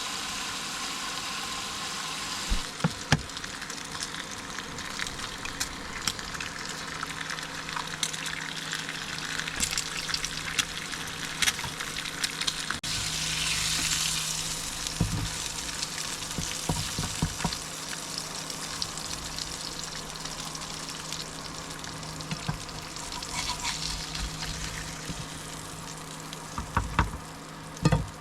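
Bacon sizzling in a frying pan, a steady hiss broken by frequent sharp crackles and pops of spitting fat; the sizzle swells briefly about halfway through.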